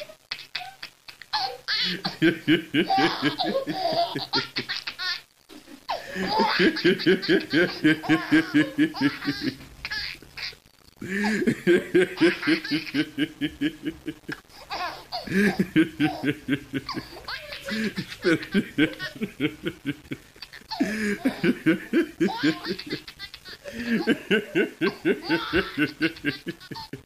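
A man laughing hard in long runs of rapid, high-pitched bursts, pausing for breath every few seconds.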